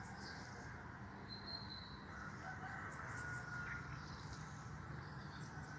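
Faint birds calling outdoors, a few short pitched calls over a steady low background hiss.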